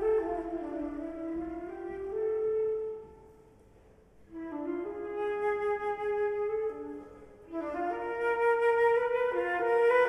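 Solo concert flute playing slow phrases in its lower register. It breaks off for about a second around three seconds in, and plays louder from about halfway through.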